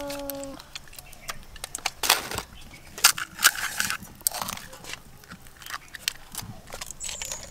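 Crisp fried fuchka (pani puri) shells being cracked open with the thumb: a scattered series of sharp crackling snaps, the loudest about two, three and three and a half seconds in.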